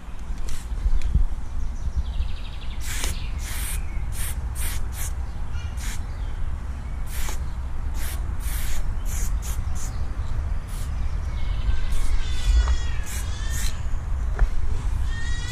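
Aerosol spray paint can hissing in many short bursts, some in quick succession, as small areas are filled in, over a steady low rumble. Near the end comes a brief warbling call.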